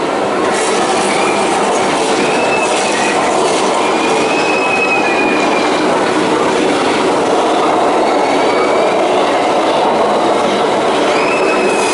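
Studio Tram tour vehicle running with a steady rolling rumble, and short high squeals coming and going several times.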